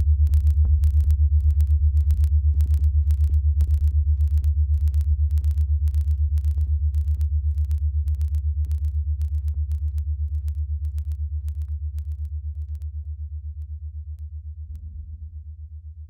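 Background music: a deep pulsing bass with a regular ticking beat, fading out steadily toward the end.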